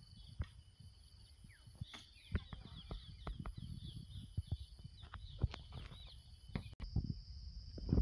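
Outdoor nature ambience: birds chirping in rapid runs over a steady high insect drone, with a low wind rumble and scattered handling knocks. Near the end the drone shifts to a single higher, steadier tone.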